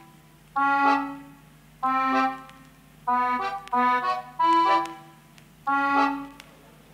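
Background music: a tune of short held chords in about six phrases with brief gaps between them, over a steady low hum.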